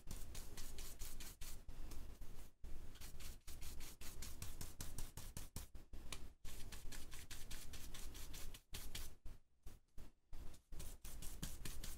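Quick scratchy strokes of a small stencil blending brush dabbed and brushed over a plastic stencil on card, several strokes a second, with a few short pauses in the second half.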